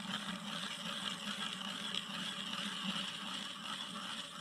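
Hand-cranked ice auger boring a hole through lake ice, its blades cutting with a steady scraping, grinding noise as the handle turns.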